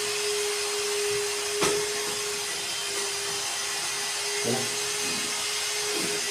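Small electric tile vibrator with a suction-cup base running with a steady hum and hiss, set on a freshly laid floor tile to bed it into the mortar. A single click about one and a half seconds in.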